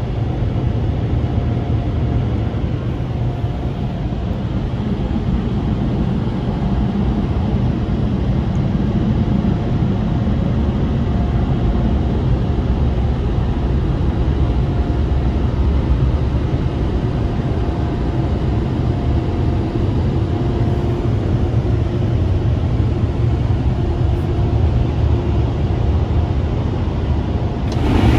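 Laserwash G5 touchless car wash's gantry-mounted dryer blowers running, heard from inside the car as a steady low rumble with a faint hum over it. The sound grows brighter and a little louder near the end.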